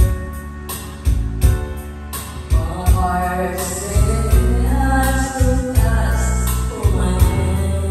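A girl singing karaoke into a microphone over a videoke backing track with a steady bass beat; her voice comes in strongest from about three seconds in.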